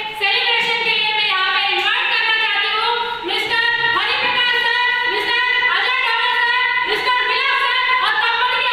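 A woman singing a melody, with long held high notes and sliding pitch.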